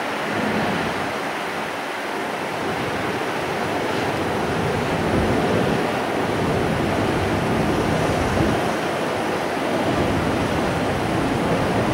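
Strong wind buffeting the camera microphone: a steady rushing noise with rumbling, uneven gusts.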